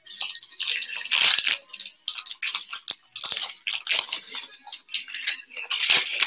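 Foil wrapper of a Bowman baseball card pack crinkling and tearing as it is pulled open by hand, in several bursts, loudest about a second in and again near the end.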